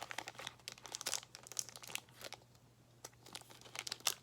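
Crinkling of a snack bar's plastic wrapper being handled and opened: a run of irregular crackles, sparser about halfway through.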